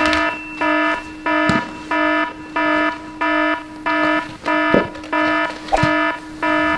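Fire alarm beeping: a buzzy electronic tone repeating evenly about one and a half times a second, with a few faint knocks among the beeps.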